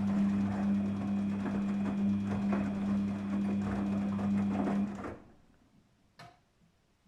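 Daewoo DWD-FT1013 front-loading washing machine humming steadily over a rush of water, which cuts off abruptly about five seconds in; a single sharp click follows about a second later.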